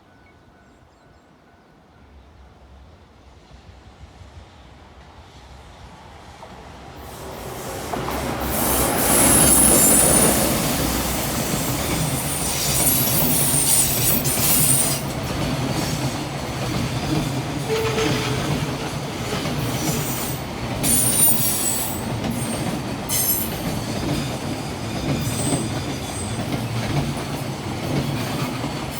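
JR Freight EF210 electric locomotive and freight train approaching, growing louder over the first several seconds, then passing close with a continuous rumble of wagons, clickety-clack over the rail joints and high-pitched wheel squeal that comes and goes.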